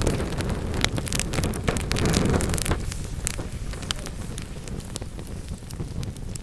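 Wood fire in a fireplace crackling, with frequent sharp pops over a low rushing sound of the flames. The rushing eases off about two and a half seconds in, leaving scattered crackles.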